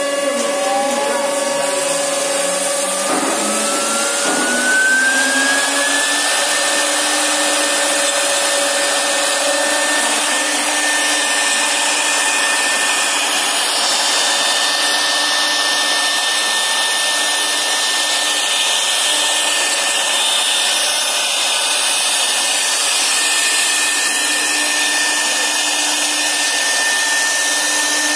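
CNC router spindle spinning up, its whine rising in pitch over the first six seconds, then running steady at speed while the bit engraves an aluminium composite panel, over a continuous hiss.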